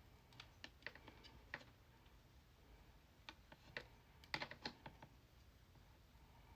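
Faint, irregular light clicks and taps, in two short clusters, about half a second in and again around three to five seconds in, over near silence.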